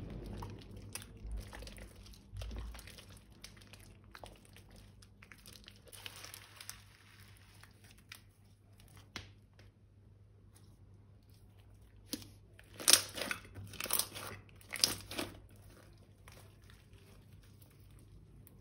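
Crinkling and crackling from slime-making materials being handled: scattered light crackles, with a cluster of louder crinkly bursts about two-thirds of the way in.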